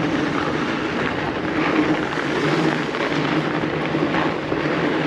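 Fat bike's wide tyres rolling fast over packed snow: a steady hum under a broad hiss, with some wind noise on the microphone.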